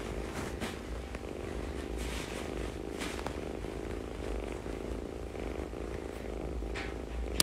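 Kitten purring steadily.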